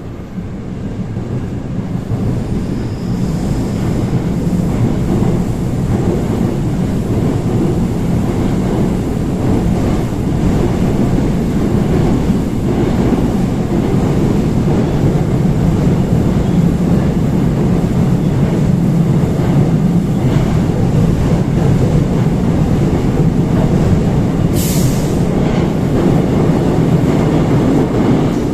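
Seoul Line 4 4000-series GTO-VVVF subway train running between stations: a loud, steady rumble of wheels and running gear that builds over the first few seconds, then holds. A brief sharp high-pitched sound cuts in near the end.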